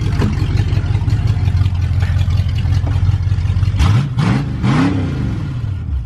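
Ford 302 small-block V8 in a 1973 Mustang idling straight piped, its exhaust cut off so it dumps out of short down pipes right behind the manifolds, very loud. About four seconds in it revs briefly, rising and falling in pitch.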